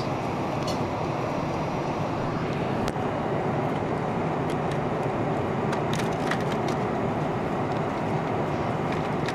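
Steady in-flight cabin noise of a Boeing 747-400, the even hiss of engines and airflow. A few light clicks and crinkles from the meal tray and its foil-lidded dish come about three seconds in and again around six seconds in.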